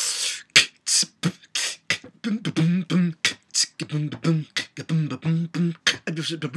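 A man beatboxing: a quick run of sharp hissing snare and hi-hat strokes, then from about two seconds in short hummed bass notes alternating with clicks in a steady rhythm.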